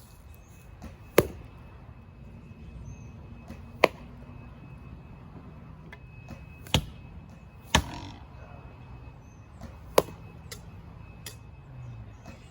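Five sharp, short knocks or thwacks at uneven intervals, over a low steady background.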